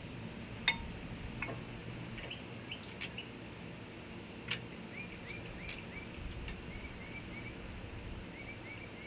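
Light metallic clicks and clinks as a brake caliper is worked into place over new pads and rotor, one with a short ring, scattered over the first six seconds. A small bird chirps repeatedly in the background through the second half.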